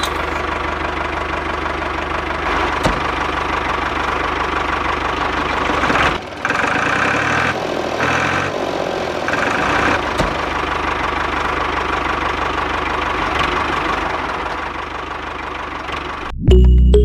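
Small electric motors and gears of a homemade miniature drilling rig running steadily, with a higher whine cutting in and out between about six and ten seconds in. The motor sound stops abruptly near the end and music starts.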